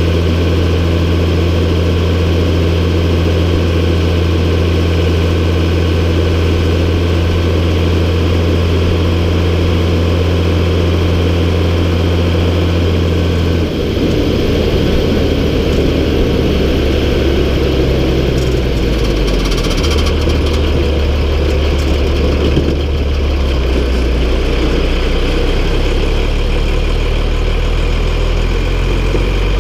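MB Trac 1800 tractor's six-cylinder diesel engine running at a steady speed. About halfway through its note drops lower and wavers, dips briefly, then settles again.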